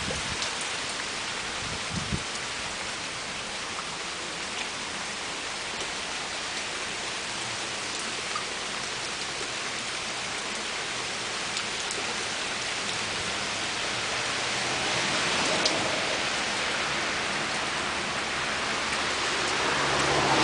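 Heavy wet snow falling, a steady rain-like hiss with scattered drip ticks. Near the end a vehicle approaches, its low engine hum growing louder.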